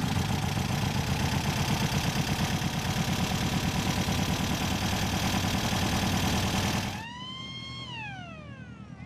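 A custom trike's motorcycle engine running close up, pulsing fast and steadily, until it cuts off suddenly about seven seconds in. After it, a single high cry rises, holds briefly and slides down.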